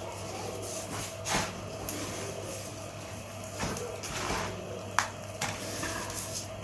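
Scattered handling noises: a few short knocks and rustles as salt-packed mullet are pressed down with coarse salt, over a steady low hum.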